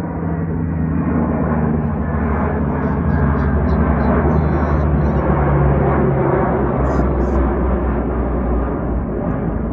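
Two four-engine military turboprop transport planes passing low overhead: a loud propeller and engine drone whose low tones slide down in pitch as they go by. It is loudest about halfway through, then eases off.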